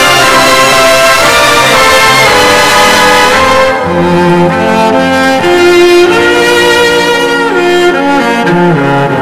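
Light orchestral music played from a vinyl LP: full brass and strings together, thinning about four seconds in to a few held lines in the strings and lower instruments that change notes in steps.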